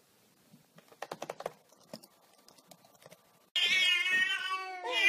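Cat's paws tapping on a laptop keyboard: a quick run of key clicks about a second in, then a few lighter taps. About three and a half seconds in, a cat yowls loudly in a long call that falls in pitch, and a second call begins near the end.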